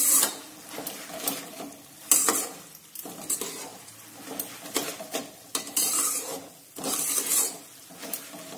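Spatula stirring puffed rice through hot jaggery syrup in a kadai: irregular scraping strokes against the pan, with the crisp rustle of the puffed rice being tossed.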